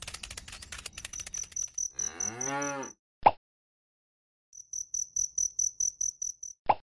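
A cow moos once, about two seconds in, between two runs of evenly pulsed cricket chirps. Quick ticking at the start and two short sharp pops, one right after the moo and one near the end.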